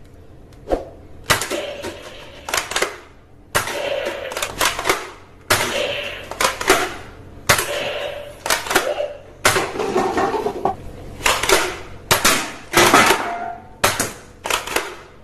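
Toy guns being worked and fired: a run of sharp clicks and snaps, one every half-second to second, coming in quicker strings near the end.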